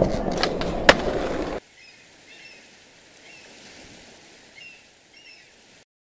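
Skateboard wheels rolling on a hard surface with two sharp clacks of the board. After about a second and a half this cuts to faint outdoor ambience with a few short bird chirps, and the sound stops just before the end.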